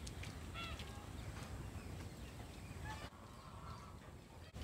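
A goose honking faintly, several short calls spread over a few seconds.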